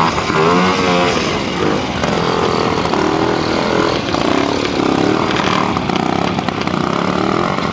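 BSA Bantam trials motorcycle's two-stroke single-cylinder engine revving, its pitch rising and falling over and over as the rider works the throttle. It is under load on a steep climb with the rear wheel spinning.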